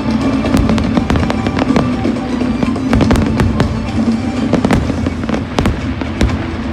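Aerial fireworks exploding in quick succession, many sharp bangs a second, over the show's accompanying music.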